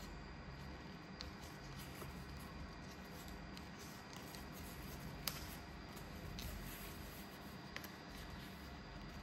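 A sheet of paper being handled and folded by hand, with faint rustling and a few light ticks as creases are pressed, the sharpest about five seconds in.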